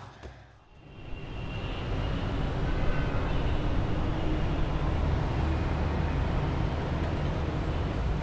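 City traffic ambience: a steady low rumble of distant traffic that fades up after a brief hush near the start.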